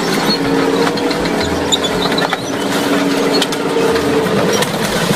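A tracked tank's engine running hard with a steady hum as the tank climbs onto a minivan and crushes it, with scattered cracks and crunches of metal and glass throughout.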